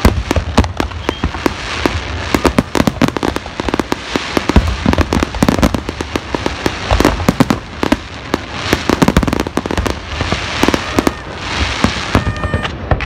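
Aerial fireworks bursting in a continuous barrage of sharp bangs and crackles, several reports a second and uneven in loudness. A brief high tone is heard near the end.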